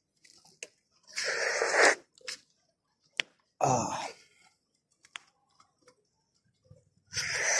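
Three loud, breathy rushes of air close to the microphone, each under a second, at about one, three and a half, and seven seconds in. Between them come scattered light clicks.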